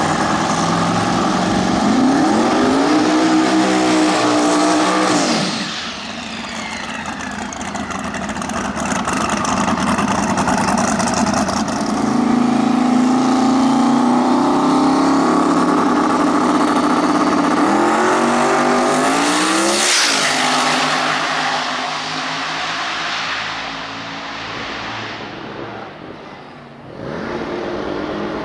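Twin-turbo V8 drag car engine at full throttle, revving and accelerating hard, its pitch climbing in surges. The sound breaks off abruptly a couple of times and picks up again.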